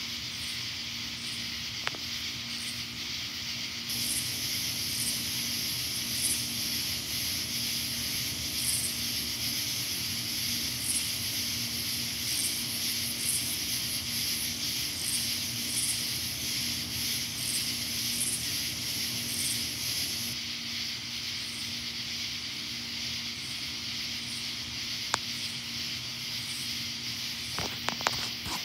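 Night chorus of insects: a steady high, hissing drone, with a higher rhythmic pulsing chirp joining in about four seconds in and dropping out about two-thirds of the way through, over a faint low steady hum. A couple of small clicks near the end.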